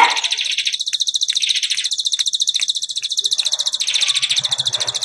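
Bar-winged prinia (ciblek) singing a fast, even run of high chirps repeated many times a second, with a few faint clicks in the first couple of seconds.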